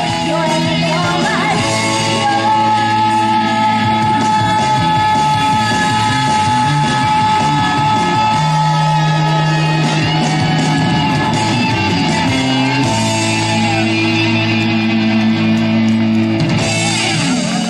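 Live trot song through a loud PA: a singer over an amplified band backing track with a steady bass line, holding one long note through the first half.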